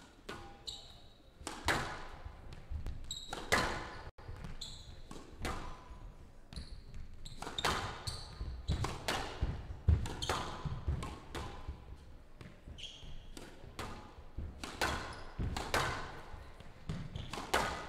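Squash rally on a glass-walled court: the ball cracks sharply off racquets and walls every half second to second, starting about a second and a half in. Short high squeaks of court shoes on the floor come between the hits.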